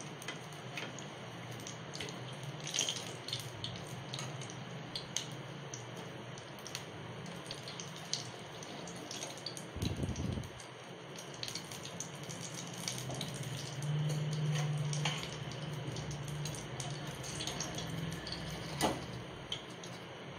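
Hot oil bubbling and crackling in a kadai around deep-fried pastry puffs, with scattered small pops, as the puffs are lifted out with a wire-mesh spider strainer. A dull knock about ten seconds in.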